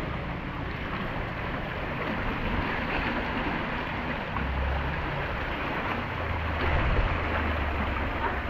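Muddy floodwater of a rain-swollen stream rushing fast along a roadside ditch, a steady churning water noise. From about halfway through, a low rumble of wind on the microphone joins it.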